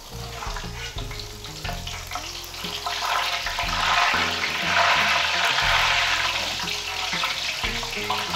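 Hot oil sizzling around light-brown fried onion slices as they are scooped out of a large aluminium pot with a perforated steel skimmer. The sizzle swells to its loudest around the middle.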